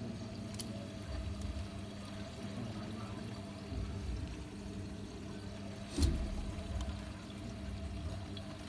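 Hotpoint WT761 Ultima washing machine in its rinse, water running and sloshing in the drum over a steady motor hum, with low rumbling swells as the drum turns and one sharp thump about six seconds in.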